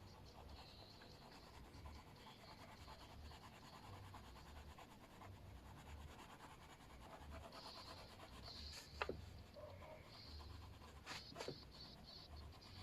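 Faint scratching of a colouring tool on paper in irregular strokes, with three sharp clicks in the last few seconds.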